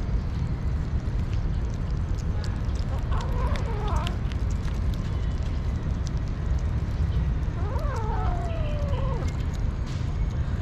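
Kittens eating raw meat from a tray, with small wet chewing and smacking clicks, and a kitten meowing twice: a short call a few seconds in and a longer, falling meow near the end. A steady low rumble runs underneath.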